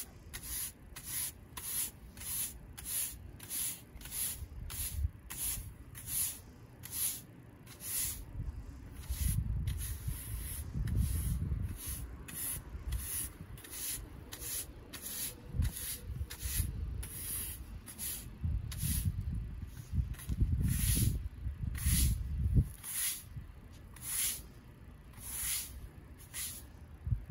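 Broom sweeping cut grass off a concrete walkway: a scratchy bristle scrape on each stroke, about one and a half strokes a second. A low rumble comes and goes in the middle.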